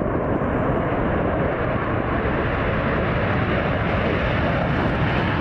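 F-15E Strike Eagle taking off, its twin jet engines at takeoff power: a loud, steady rush of jet noise that grows brighter and hissier as the jet lifts off and passes close.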